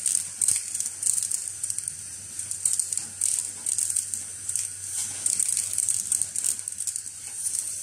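A lead cutter's vacuum system hissing steadily as it sucks cut component-lead clippings off a circuit board. The clippings make irregular crackles and ticks as they rattle through the clear suction tube into the collection bin, over a faint low hum.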